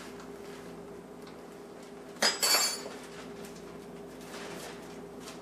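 Two quick clinks of kitchenware against each other about two seconds in, over a faint steady hum.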